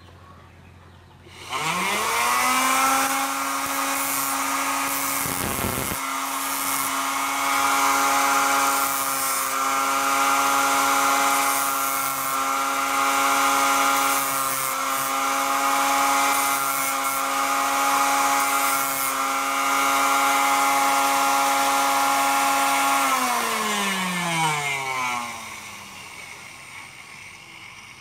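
Homemade PVC-pipe hand sander's 775 DC motor switched on, spinning up quickly to a steady whine. It runs for about twenty seconds, then is switched off and winds down with a falling pitch.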